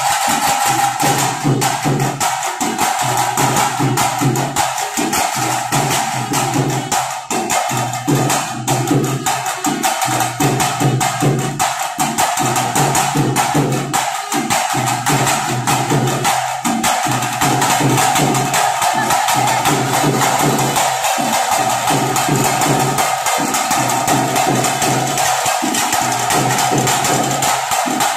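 Fast, relentless stick drumming from a band of drums, the tase drumming that accompanies Pili Vesha tiger dancers, with a steady droning tone underneath.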